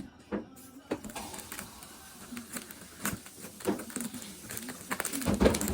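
Packaging and items being handled: a run of rustles and clicks, with a louder knock near the end.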